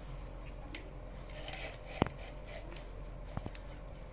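Chopsticks tapping and scraping against a glass bowl while sliced raw meat is stirred into sauce, with soft squishing of the meat. There are a few sharp clinks: the loudest is about two seconds in, and two more come close together near the end.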